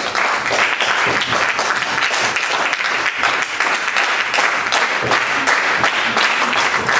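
A small audience applauding, many hands clapping at once without a common beat.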